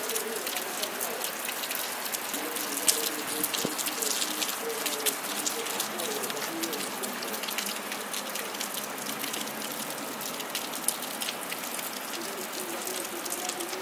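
Steady heavy rain falling, with frequent sharp ticks of drops striking close to the microphone.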